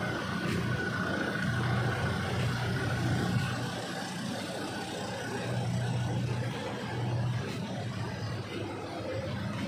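Motor vehicle engine running steadily: a low hum, with a faint high whine over it for the first few seconds.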